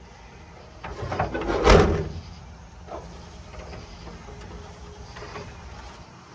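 Metal scraping and rattling as the trunk lock and its retainer clip are worked into place in the trunk lid, loudest for about a second near the start, followed by a single click.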